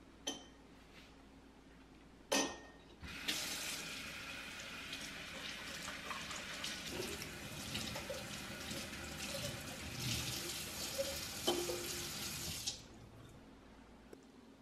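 Kitchen tap running into a stainless steel sink while a glass jug is rinsed and scrubbed with a sponge under the stream, for about nine seconds before the water is shut off. A sharp knock comes just before the water starts, and a few light knocks of the glass sound while it runs.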